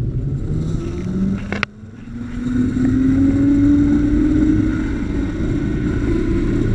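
Zipline trolley's pulley wheels running along the steel cable: a whine that rises in pitch as the rider picks up speed, then holds steady, over a low rushing noise. A single sharp click about a second and a half in.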